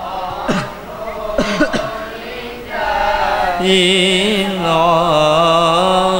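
Solo young voice chanting an Arabic devotional poem through a microphone and loudspeakers, with long wavering held notes. The first couple of seconds are a pause between lines with breath and throat noises, and the chant resumes about three seconds in.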